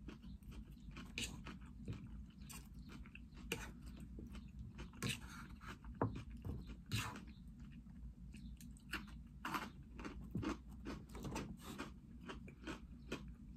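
A person chewing a mouthful of crisp salad, with many irregular crunches.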